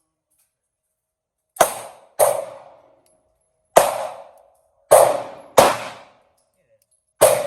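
Six shots from a Glock 9 mm pistol, fired one at a time at an uneven pace. Each shot is sharp and is followed by a short ringing echo.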